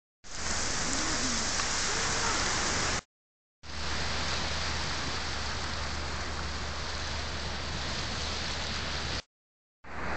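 Steady outdoor rushing noise, cut to total silence twice for about half a second.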